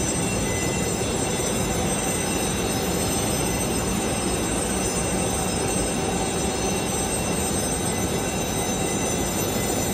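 Jet airliner's turbines running steadily: a dense, unbroken roar with several steady high whining tones above it.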